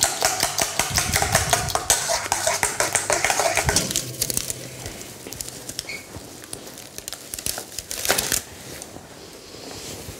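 Egg, cream and cheese filling beaten with a utensil in a stainless steel bowl: rapid clicking scrapes against the metal, stopping about four seconds in. Then quieter handling, with a brief crinkle of baking parchment about eight seconds in.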